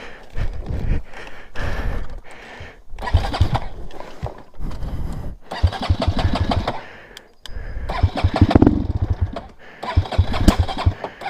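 Motorcycle engine being started repeatedly: several short bursts of cranking and firing, each catching briefly and breaking off before the next try.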